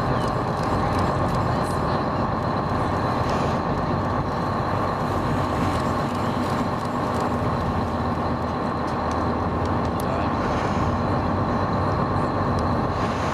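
Boat engine running with a steady drone, with a thin constant whine above it.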